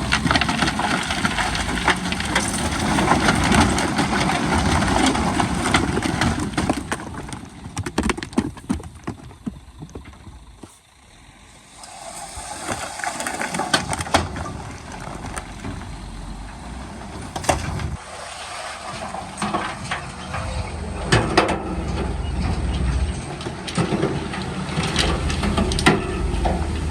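Heavy earthmoving machine's diesel engine working under load, with crunching rock and sharp clanks and knocks. The noise drops to a lull about ten seconds in, then builds again.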